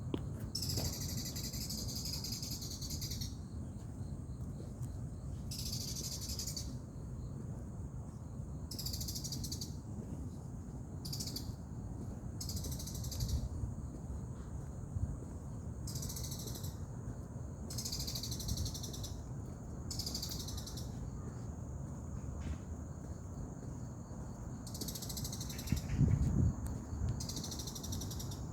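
Insects calling in repeated high, buzzy bursts of a second or two each, over a faint steady high insect trill and a low rumble of wind or mic handling. A brief low thump comes near the end.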